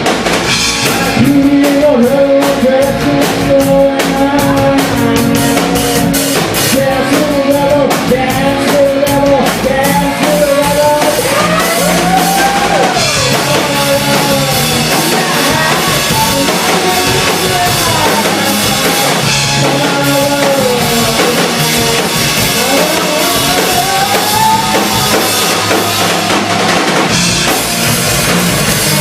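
Rock music with a drum kit and guitar, a sliding melody line carried over a steady beat.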